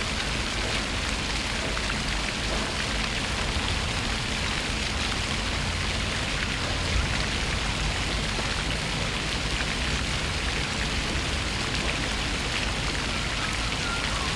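Fountain water running and splashing steadily, a continuous even rush with a low rumble underneath.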